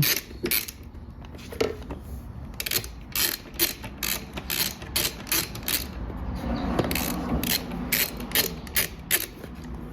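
Ratcheting wrench with a 5 mm Allen bit clicking in quick, irregular runs as it turns bolts.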